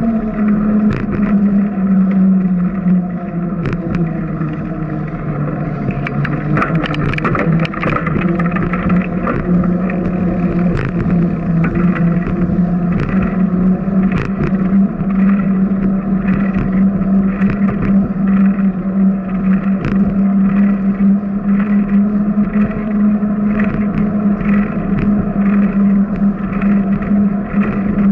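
Steady drone of a bicycle riding along a concrete path, with short knocks and rattles scattered through it.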